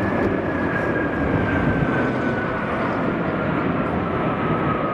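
Jet noise from a formation of six Sukhoi Flanker-family fighter jets flying over: a steady, dense rushing rumble with a whine that slowly falls in pitch as they pass.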